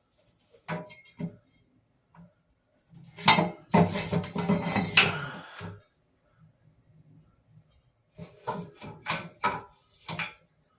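Handling sounds from steel pieces and tools: a few light knocks and clinks, a denser stretch of clatter and rubbing in the middle, then more scattered knocks near the end.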